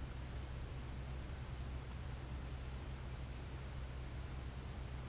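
Steady high-pitched insect chorus, a fast, evenly pulsing trill, over a low steady hum.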